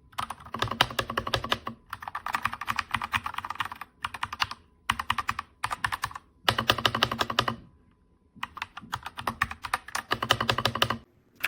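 Fast typing on the RK Royal Kludge RK61 mechanical keyboard: rapid key clicks in several bursts of a second or two, with short pauses between them.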